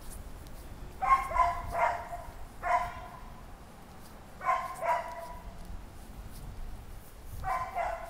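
A dog barking: a run of short barks in clusters, about seven in all, with pauses between them.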